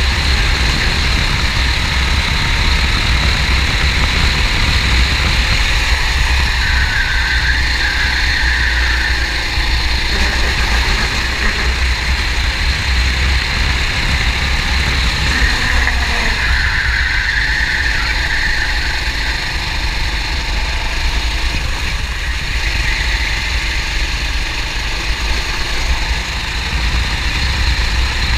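Go-kart engine running steadily as the kart laps the track, heard from an onboard camera with a heavy, steady low rumble.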